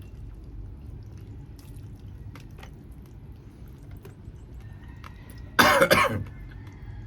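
A person coughs once near the end, a short loud cough in two or three quick bursts. Faint small clicks are heard before it.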